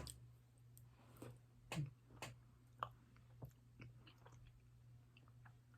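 Faint chewing and soft mouth clicks from eating ice cream with broken sugar cookie pieces, a few short ticks spread through, over a low steady hum.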